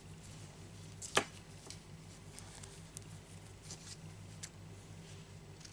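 Small, sharp clicks and taps from hands handling a crocheted piece and its thread, the clearest about a second in, over a steady low hum.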